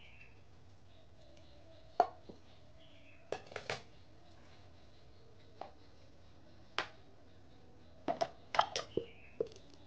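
Sharp clacks and knocks of a glass food-chopper bowl and its lid being handled as the lid is fitted on, single knocks at first and then a quick cluster near the end.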